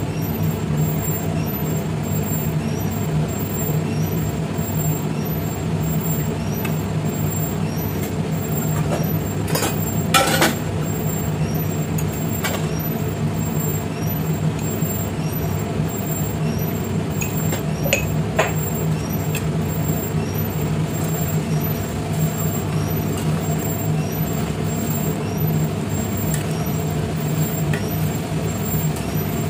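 Steady low hum of a running fan or motor, with a few short metallic clinks as a steel spoon and pan are handled, the loudest about ten seconds in.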